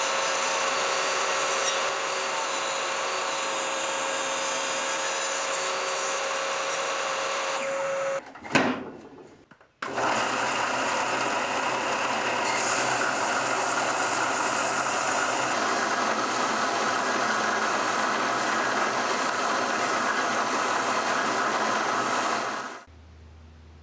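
A table saw runs steadily with a high, held whine as it cuts a small hardwood piece in a jig, then cuts off about eight seconds in with one sharp knock. A Ryobi BD4601G belt and disc sander then runs steadily with a wooden piece pressed by hand against the moving belt, and stops abruptly near the end.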